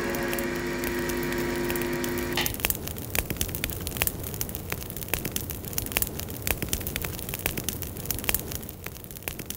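A held chord from the backing track stops about two and a half seconds in, leaving a log fire crackling, with scattered pops over a soft hiss.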